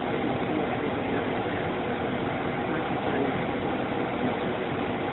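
Steady background noise: an even hiss and hum with no distinct events.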